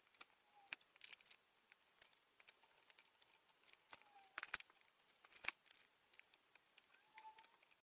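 Faint metallic clicks and clinks of a valve spring compressor and hand tools on a cylinder head's valve springs, with a few short squeaks; the sharpest clinks come about halfway through.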